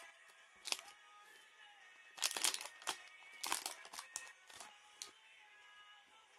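Foil booster-pack wrapper crinkling and tearing in short bursts as a Pokémon trading-card pack is opened, over quiet background music.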